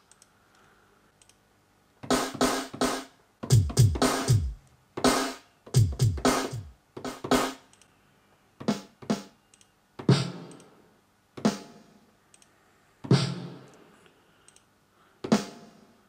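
Drum-kit presets of FL Studio's FLEX synth played from a MIDI keyboard, auditioning hits while searching for a snare. The hits start about two seconds in: short runs of strikes, two of them with a low falling boom. After that come single hits spaced a second or two apart, each dying away.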